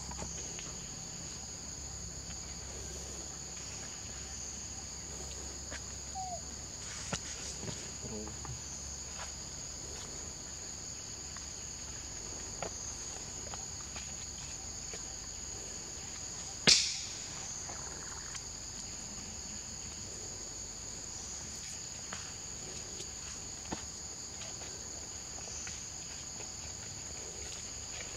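Steady high-pitched insect chorus, two shrill tones held without a break, with a few faint ticks and one sharp click a little past halfway.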